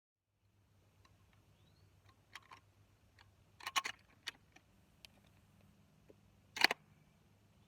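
A handful of sharp, separate clicks and clacks over a low steady hum: a quick double clack a little before the middle, and one loud click near the end.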